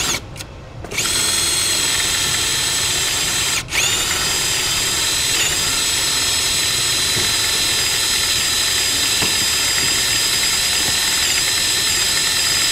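Electric drill starting up about a second in and running at speed with a steady whine. It cuts out for an instant near four seconds, then runs on.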